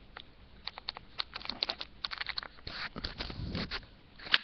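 Keys of a slim Bluetooth keyboard being pressed close to the microphone: an irregular run of short clicks, with some handling rumble about three seconds in and a sharper click near the end.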